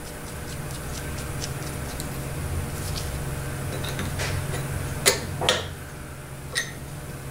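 Steel wrench working a nut down onto a terminal stud of a 42MT heavy-duty starter: light rapid metal ticking that fades out, then three sharp metallic clicks of the wrench on the nut and stud about five to seven seconds in. A steady low hum sits underneath.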